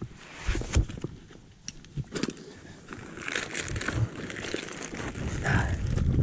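Fabric rubbing and crinkling against the camera's microphone in irregular bursts, with soft footsteps on dirt.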